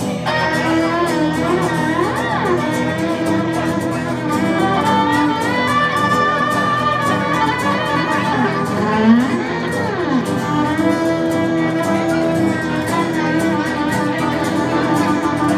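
Instrumental introduction to a song, played on violin over a guitar accompaniment, with the violin sliding in pitch a couple of times.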